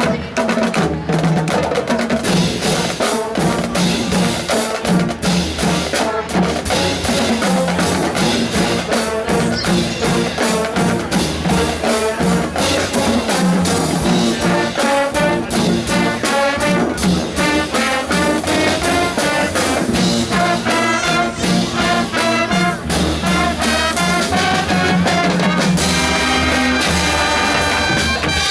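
A high school marching band playing: brass section (trumpets and trombones) over drums keeping a steady beat.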